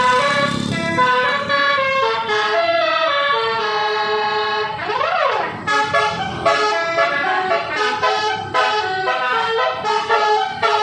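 Bus basuri telolet air horn playing a tune of stepped multi-tone notes, with one quick rising-then-falling siren-like sweep about five seconds in.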